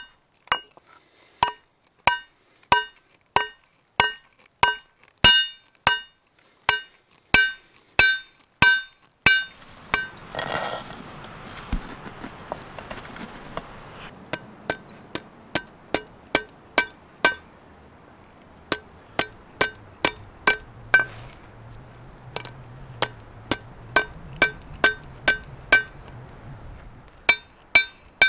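Hand hammer forging a hot mild steel arrowhead on a steel anvil block, striking in a steady rhythm of about one and a half blows a second, each blow ringing brightly. About ten seconds in, the blows stop for a few seconds of hissing rush, then the hammering resumes with a brief pause.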